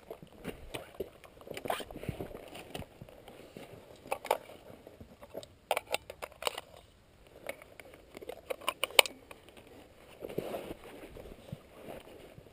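Handling noise from a shooter settling in behind a bipod-mounted rifle: scattered clicks, knocks and rustling of gear, the sharpest knock about nine seconds in.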